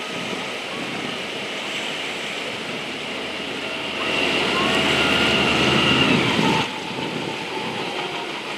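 Amphibious tour vehicle's engine running as it drives out of the water and up a boat ramp. The engine gets louder about four seconds in, with a steady high whine, and drops off abruptly a few seconds later.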